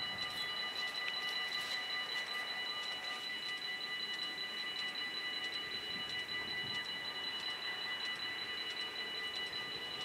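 Warning bells of a Dutch automatic half-barrier level crossing (AHOB) ringing steadily in high, even tones, signalling that the crossing is closed.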